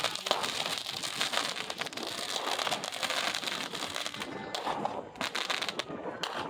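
Fireworks crackling: a dense, unbroken stream of rapid small pops and snaps.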